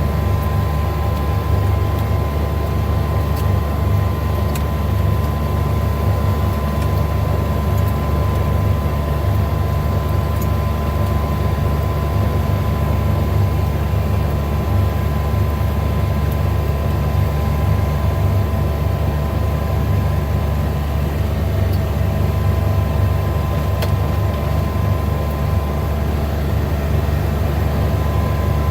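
Steady engine and road noise of a moving vehicle heard from inside, a constant low drone with a faint steady whine above it.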